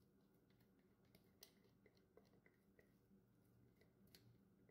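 Near silence, with a few faint short clicks and taps from the plastic mini-chopper bowl being handled, the clearest about one and a half seconds in and near the end.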